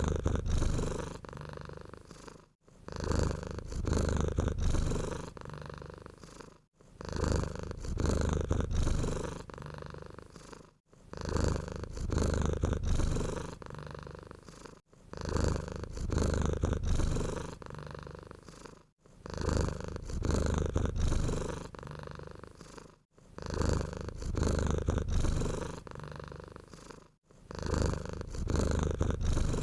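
Domestic cat purring, a low rumble that swells and fades in even cycles about every four seconds, each with a short break between.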